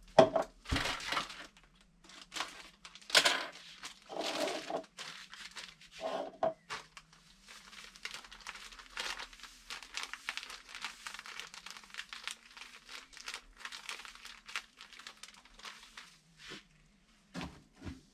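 Plastic bag of dry brown breadcrumbs crinkling and rustling as the crumbs are poured and measured into a plastic jug: several loud bursts of rustling over the first seven seconds, then a quieter, continuous crackling rustle.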